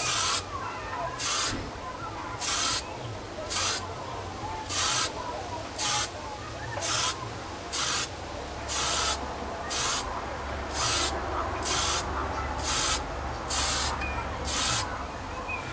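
Aerosol spray paint can hissing in about fifteen short bursts, roughly one a second, as it is swept back and forth in quick passes.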